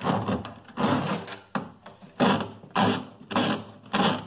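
Corrugated plastic drain hose of a twin-tub washing machine being pulled out hand over hand from under the machine's base, scraping and rubbing in repeated strokes, about seven, roughly one every half second.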